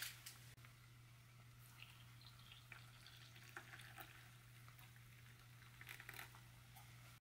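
Water trickling from a metal canteen cup into a glass of freeze-dried coffee crystals, very faint, with light scattered crackling as the crystals dissolve. A low steady hum sits underneath.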